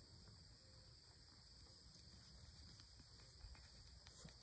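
Near silence: a faint, steady, high-pitched insect chorus.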